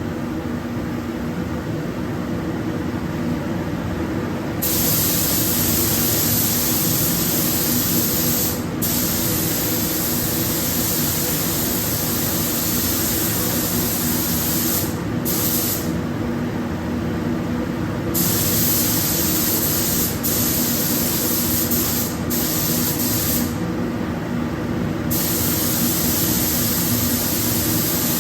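Compressed-air paint spray gun hissing as it sprays the car, the hiss cutting out and resuming several times as the trigger is released and pulled again, over a steady mechanical hum.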